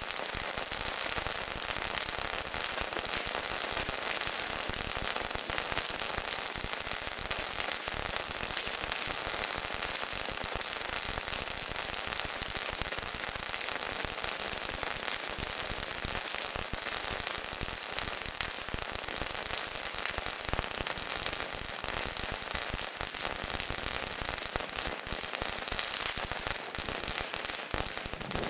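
Six Pyrotrade Crackling Action Extrem crackling fountains burning at once: a dense, unbroken crackle of countless tiny pops over a steady hiss of sparks, strongest in the high end.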